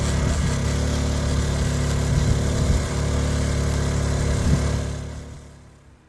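An engine running steadily at an even speed, fading out over the last second or so.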